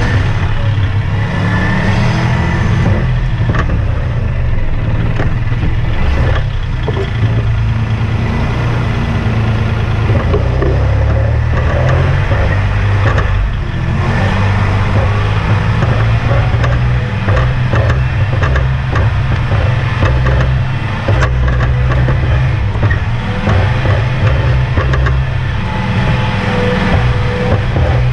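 Kubota compact tractor's diesel engine running steadily as the tractor drives over rough ground, with frequent rattles and knocks from the machine.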